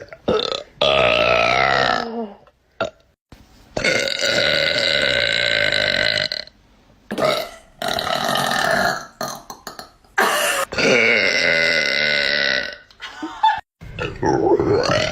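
A person burping: a string of long, drawn-out burps, four of them lasting about two seconds each, with a few short ones and pauses between.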